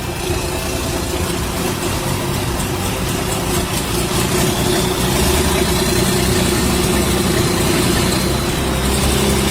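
Engine of a large machine running steadily, slowly getting louder, with a faint high whine joining about halfway through.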